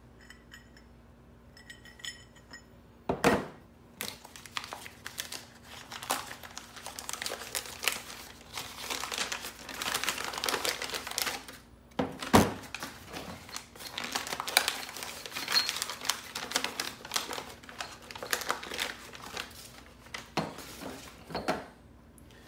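Brown kraft paper crinkling and tearing as it is unwrapped and crumpled off individually packaged transmission gears, with two heavy knocks about three and twelve seconds in.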